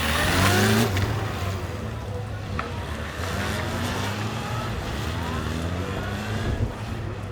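Police motorcycle engines revving and accelerating during formation drill riding, the pitch climbing several times; the loudest run-up comes in the first second.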